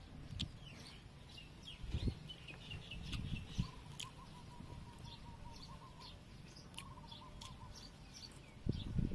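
Small birds chirping and twittering over and over, with a wavering, warbling call for a few seconds in the middle. Now and then a soft click or knock and chewing from someone eating with a spoon.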